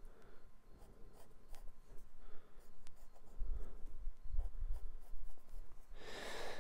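Pencil scratching on sketchbook paper in short, irregular strokes as hair details are filled in with a darker pencil, with a few soft low bumps from the hand on the page. A short hiss comes near the end.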